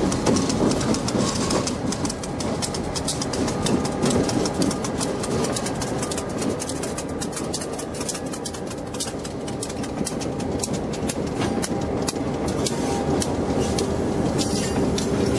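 Diesel freight locomotives moving slowly past, a steady engine rumble with the wheels clicking repeatedly over rail joints and switch points.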